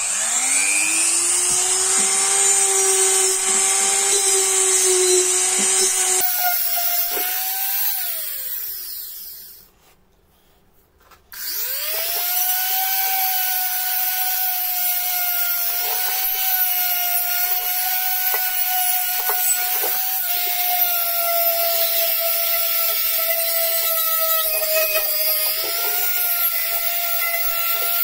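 Handheld rotary tool spinning up to a steady high whine and working a small abrasive bit over a copper bowl. About a third of the way in it winds down and stops, and a couple of seconds later it starts again and runs on steadily, its pitch wavering slightly as the bit is pressed against the metal.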